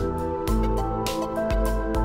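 Background music with a steady beat and held notes over a moving bass line.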